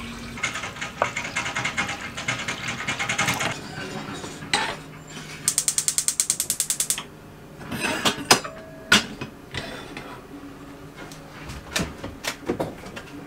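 Gas hob's spark igniter clicking in quick, even runs as a burner is lit, with a burst of about nine clicks a second near the middle. A few knocks of a metal pot on the hob follow.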